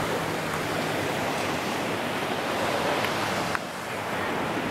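Sea surf washing with wind on the microphone, an even rushing noise, with one brief click about three and a half seconds in.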